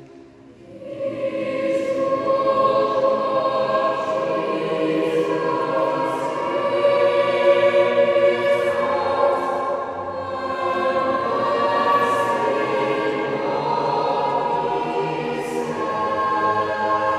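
Mixed choir of adults and children singing in parts, sustained notes with crisp 's' consonants, coming in about a second in after the previous chord dies away. The singing carries a long reverberant ring from the stone chapel.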